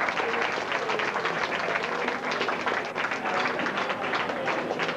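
Audience applauding, a dense steady clapping with scattered voices in the crowd.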